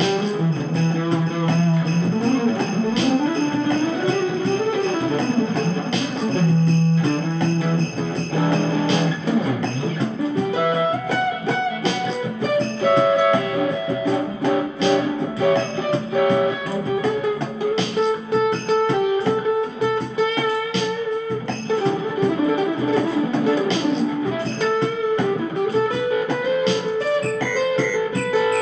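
Background music throughout: a sustained low note and a slow sliding melody in the first part, giving way about a third of the way in to a higher melody of held notes.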